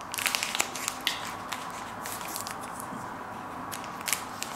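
Thin plastic protective wrap on a smartphone crinkling and rustling as it is handled, with scattered small clicks; a louder rustle about a second in and another near the end.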